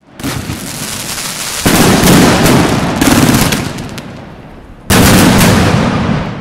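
Fireworks going off: a dense, crackling rush of noise with two loud blasts, one about a second and a half in and another near five seconds in, each fading away afterwards.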